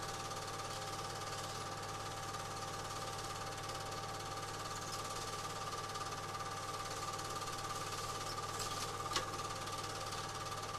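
Film projector running: a steady whirr and fine rapid clatter of the film-advance mechanism over a motor hum, with one sharp click about nine seconds in.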